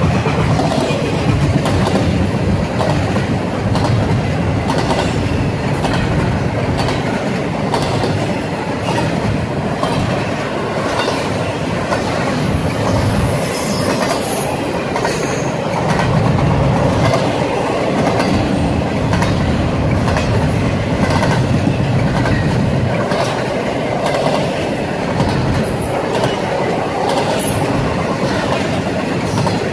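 Train cars rolling past close by, wheels clicking steadily over the rail joints, with a brief high wheel squeal about halfway through.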